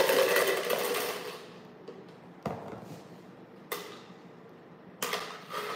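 Plastic sand toys handled in a plastic bin: a scraping rustle of a plastic scoop and canister in the first second and a half, then three sharp plastic knocks about a second apart.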